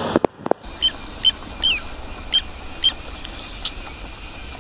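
A bird calling again and again with short, sharp chirps, one every half second or so, over a steady high-pitched drone of insects. A couple of clicks near the start as the phone is handled.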